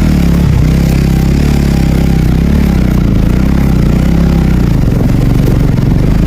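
A vehicle engine running steadily under load as it climbs a road, its pitch drifting up and down a little.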